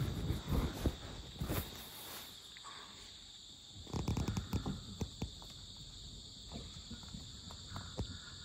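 Insects trilling steadily in a high, even chorus. Fabric rustles in the first couple of seconds, and a few soft clicks and knocks come about four seconds in.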